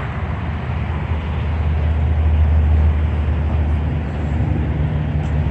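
Steady low rumble of a running vehicle, swelling slightly midway, over a hiss of background road noise.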